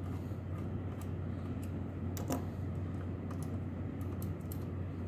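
Small screwdriver turning a small silver screw out of a computer module's metal case: scattered light clicks and ticks, over a steady low hum.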